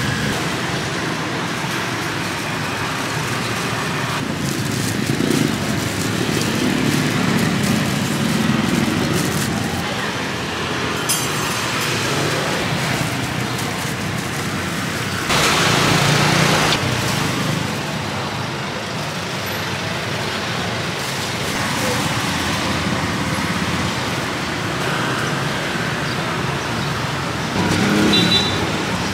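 Street traffic noise with vehicles going by. About halfway through, a louder vehicle passes for a couple of seconds.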